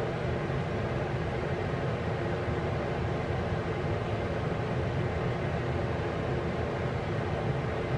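Steady whirring hum of a running fan, even and unbroken.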